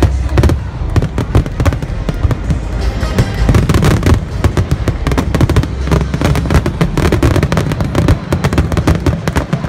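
Fireworks going off in a dense, continuous string of bangs and crackles, with music playing underneath.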